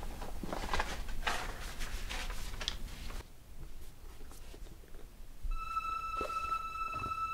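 Rustling and handling noises of clothing, couch and a sketchbook as it is passed over, then a few soft page and paper sounds. About two-thirds of the way in, a steady high tone sets in and holds.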